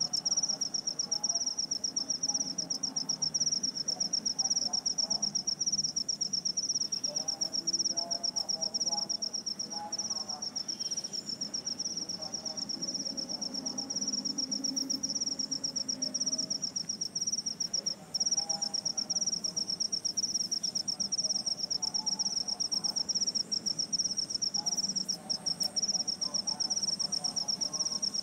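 An insect trilling without a break, a high, fast, even pulse, with faint lower chirps in the background.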